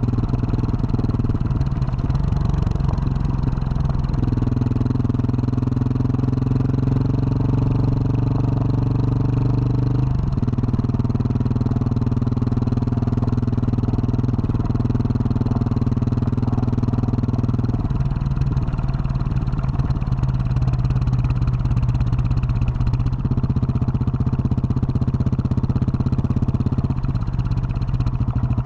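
2021 Husqvarna 701 supermoto's single-cylinder engine through a Wings aftermarket exhaust, running steadily as the bike is ridden along a dirt road. Its note steps up and down several times as the throttle and gears change.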